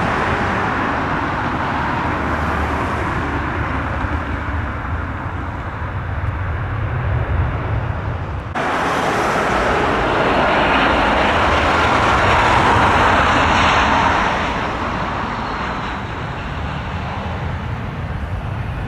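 Large jet airliner's engines, a continuous rushing noise. The sound changes abruptly about eight and a half seconds in, grows to its loudest, then eases off a few seconds before the end.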